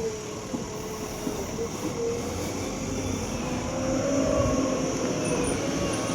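JCB 3DX backhoe loader's diesel engine running under load, a steady drone with a pitched tone that swells a little about four seconds in.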